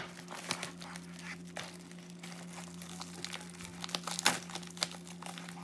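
A plastic mailer bag being twisted and pulled by hand to tear it open without scissors: the plastic crinkles and crackles in quick irregular bursts, loudest about four seconds in.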